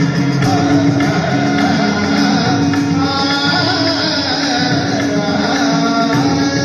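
A man singing a Kannada stage-drama song into a microphone, accompanied by his own electronic keyboard, which holds a steady drone note under the melody, with a light regular beat.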